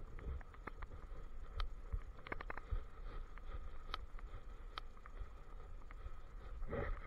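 Handling noise from a camera worn on a walking German shepherd: irregular light clicks and taps from its gear or steps over a low rubbing rumble, with a faint steady high hum. A brief louder rustle near the end.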